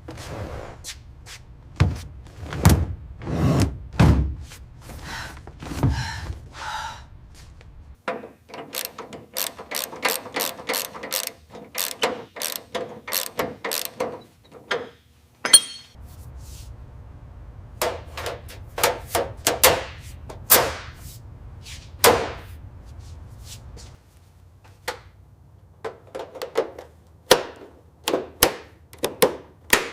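Workshop mechanical work on a car: a series of metallic knocks, clanks and clicks, including ratcheting, in short bursts that change every few seconds.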